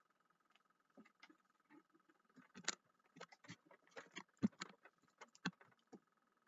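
Quiet handling noises close to the microphone: an irregular string of clicks, taps and rustles, starting about a second in, busiest in the middle and with two louder knocks, over a faint steady tone.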